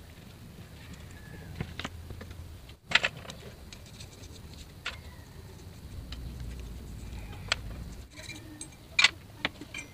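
Scattered clicks and clinks of metal scooter clutch and torque drive parts against an aluminium basin, with light brush scrubbing as they are washed in gasoline. The loudest knocks come about three seconds in and again near the end.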